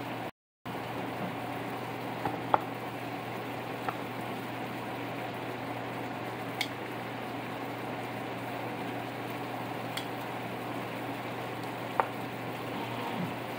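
Chicken pieces cooking in sauce in a frying pan, a steady bubbling sizzle, with a few light clicks and taps scattered through. The sound cuts out briefly about half a second in.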